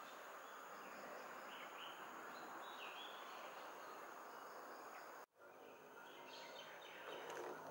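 Faint rural ambience: a steady insect hiss with a few short bird chirps, broken by a sudden brief dropout about five seconds in.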